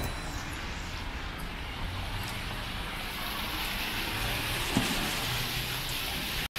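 Cars driving along a rain-wet city road, their tyres hissing on the wet surface; the hiss grows louder about halfway through. The sound cuts out for an instant just before the end.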